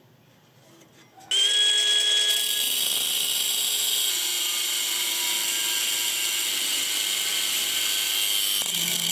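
Angle grinder's abrasive disc cutting into the steel jaw of a pair of pincers clamped in a vise. It starts suddenly about a second in and runs steadily with a high whine.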